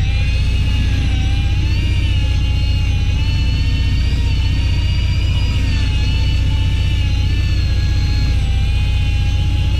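Electric fishing reel's motor winding in line under load, a whine that wavers slowly in pitch, over the steady low rumble of the boat's engine.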